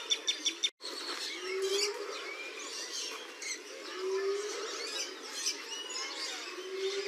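Hyena whooping: a low call that rises in pitch, given three times about two and a half seconds apart, with birds chirping in the background. It opens with a quick run of sharp cackling pulses, cut off by a brief dropout under a second in.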